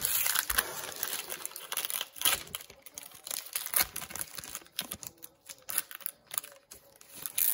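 Foil wrappers of Panini Prizm and Donruss basketball card packs crinkling and crackling as they are handled and torn open, with many quick irregular clicks.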